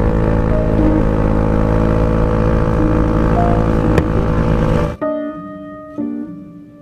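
Wind rush and a motor scooter's engine running at road speed, with music over it; about five seconds in the ride sound cuts off abruptly, leaving only slow music with single held notes.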